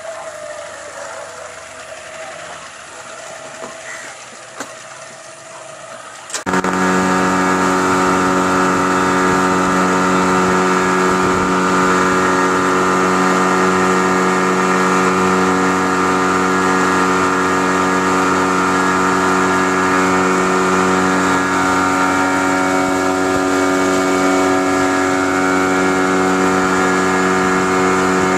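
Boat outboard motor running. It is faint and steady at first, then about six seconds in the sound jumps to a loud, steady engine drone heard from aboard the moving boat.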